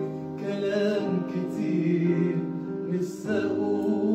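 A man singing a held, wavering melodic line into a microphone over sustained accompaniment chords. The chords change about three seconds in.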